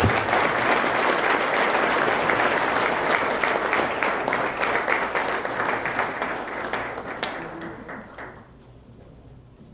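Audience applauding: many hands clapping in a dense, steady patter that thins out and fades away about eight seconds in.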